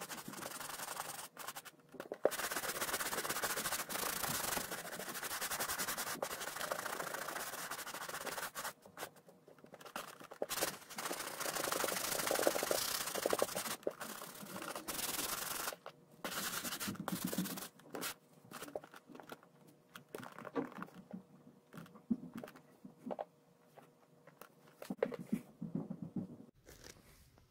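Boot polishing brush scrubbing briskly back and forth over a leather riding boot, in two long spells of dense scratchy brushing, followed by shorter scattered strokes and knocks as the boot and brush are handled and the brush is set down.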